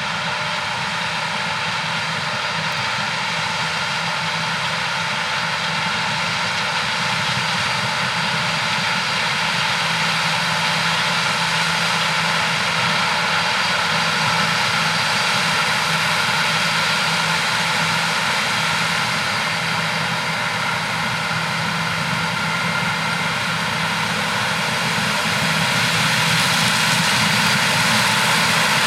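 A large diesel combine harvester running steadily in the field, its engine and threshing machinery giving a constant hum that slowly grows louder.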